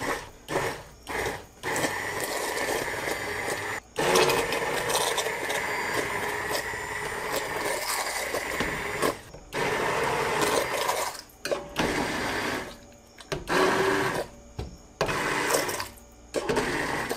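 KitchenAid 2-speed hand blender motor running in a pot of hot butternut squash soup, pureeing the cooked chunks. It starts with a few short pulses, then runs steadily for several seconds with a brief stop. After that it comes on in bursts of a second or two with short pauses between.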